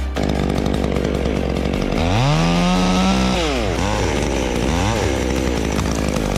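Chainsaw running, revved up about two seconds in and held for over a second before dropping back, then revved briefly twice more.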